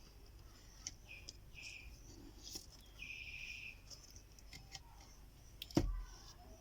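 Small clicks and scrapes of multimeter probes and handling on a laptop motherboard, with a short scratchy rasp about three seconds in and one louder knock near the end.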